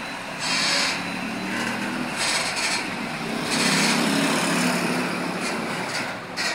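Heavily loaded truck passing close by: its engine running under load with tyre and road noise, and several loud bursts of hiss.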